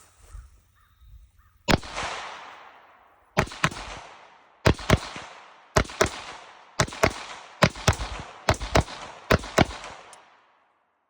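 Semi-automatic firearm firing cheap hard-primered ammunition: about a dozen shots, many in quick pairs, each with a long echo, until the magazine runs empty.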